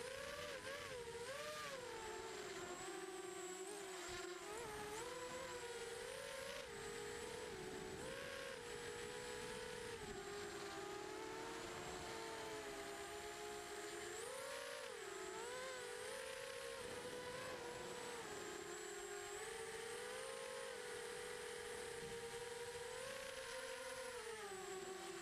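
FPV drone's electric motors and propellers whining. The pitch rises and falls in quick swoops as the throttle changes, over a steady airy hiss.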